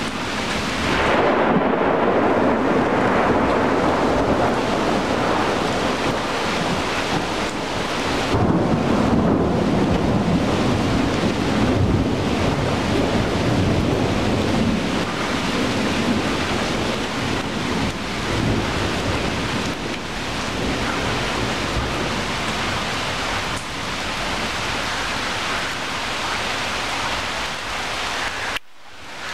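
Steady heavy rain falling on tree leaves, with thunder rolling low beneath it, swelling about a second in and again a few seconds later. The sound drops out for a moment near the end.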